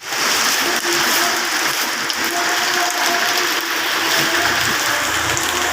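Steady rain falling, an even hiss, with a faint steady hum underneath and a low rumble in the last second or so.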